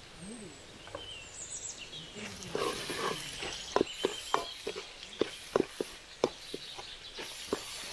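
Metal ladle knocking and scraping in a frying pan, in sharp irregular strokes about two or three a second, over a steady sizzle that starts about two and a half seconds in, as ginger-garlic paste is stirred into sautéed onions in hot oil.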